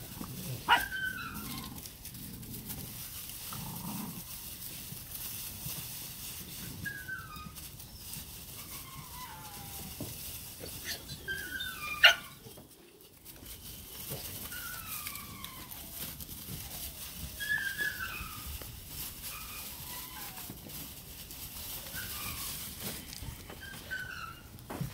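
Puppies yipping and whining in short, high, falling squeaks scattered throughout as they play. Two sharper, louder yelps come about a second in and about halfway through.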